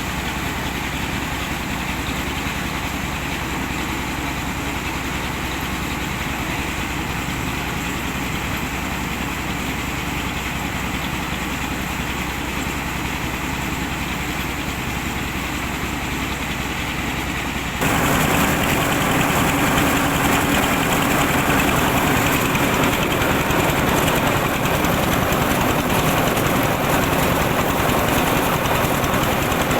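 An engine running steadily, driving machinery. About two-thirds of the way through, the sound abruptly turns louder and harsher and then holds steady.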